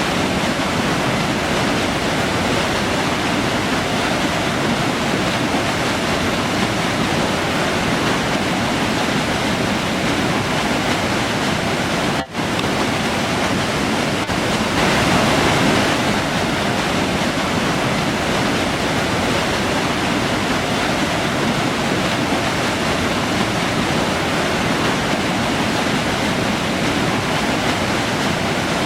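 River water rushing steadily, an even wash of noise. It dips briefly about twelve seconds in.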